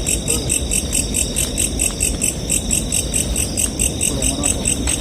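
Night insects, crickets or katydids, chirping in an even, fast rhythm of about five high chirps a second, over a low rumbling noise.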